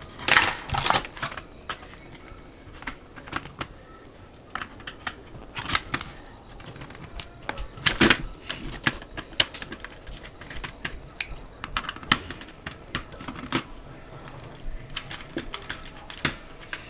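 Irregular sharp clicks and ticks as the four small screws of a JLS 2030B airsoft electric blowback pistol's grip cover are worked out with a hand tool, and small parts clack together.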